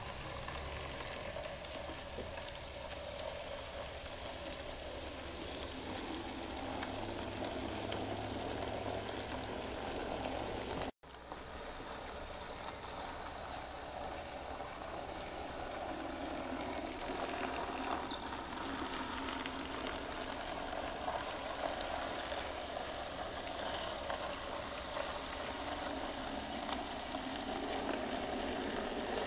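Tiny Nn3-scale brass model locomotives running on handlaid track: a steady whir from their small motors, with a thin, wavering high whine over a rumble of wheels on the rails. The sound cuts out for a moment about eleven seconds in.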